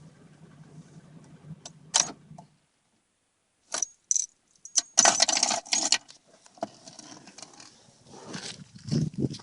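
Dodge Intrepid engine idling, then cut off about two and a half seconds in. After a brief silence come sharp clicks and a loud metallic jangle like a set of keys being handled.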